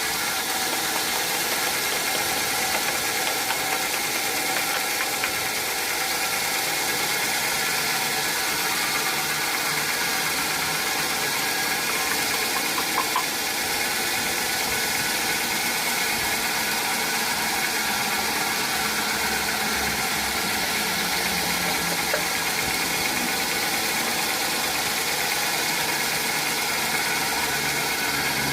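Sawmill machinery running steadily: a continuous engine-and-saw drone with a dense hiss. A few light clicks come about halfway through.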